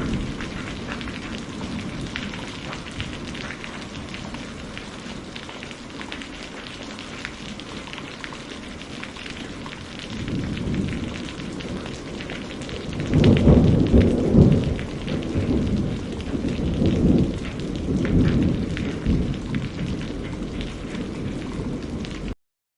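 Steady rain falling with thunder. A low rumble fades early on, then a thunder roll builds about halfway through and is loudest a little past the middle before rumbling on in further rolls. The sound cuts off abruptly just before the end.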